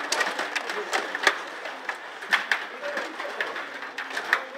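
Rod hockey table in play: the metal rods rattling and clicking as they are pushed and turned, with sharp clacks of the puck against the plastic players and boards, the loudest about a second in. Voices murmur underneath.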